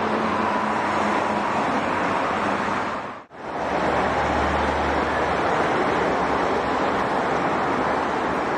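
Steady noise of dense highway traffic, cars and trucks passing at speed with tyre and engine noise. It cuts out briefly about three seconds in, then comes back with a deeper low rumble from a heavy truck for a second or so.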